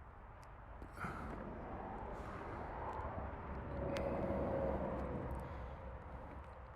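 Kawasaki ZX-10R's inline-four engine running under load. It picks up sharply about a second in, is loudest about four to five seconds in, then eases off.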